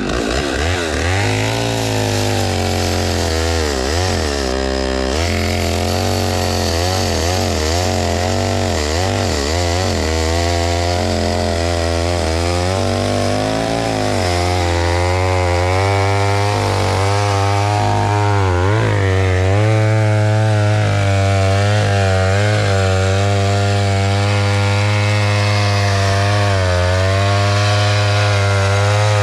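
Two-stroke chainsaw running under load, cutting wood. The engine pitch dips and rises repeatedly for the first half as the chain bites, then holds steadier.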